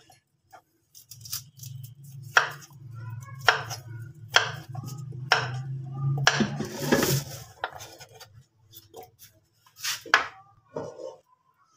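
Kitchen knife cutting boiled potato slices on a wooden chopping board: a series of sharp knocks of the blade through the potato onto the board, about one a second. A low steady hum sits underneath for most of the first two thirds.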